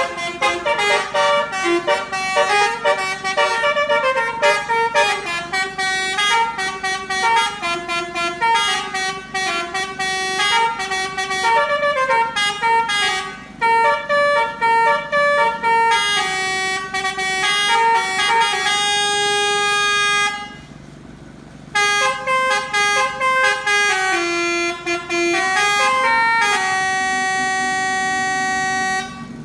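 Telolet 'Basuri' multi-tone horn on a tour bus playing a quick melody of short notes. It breaks off briefly about thirteen seconds in and again for over a second about twenty seconds in, then ends with a few long held notes before cutting off.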